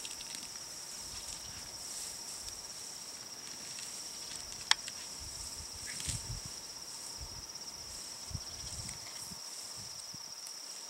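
Steady high-pitched insect chirring with a fine pulsing texture. A single sharp click sounds about four and a half seconds in, and soft low rustling thumps come now and then.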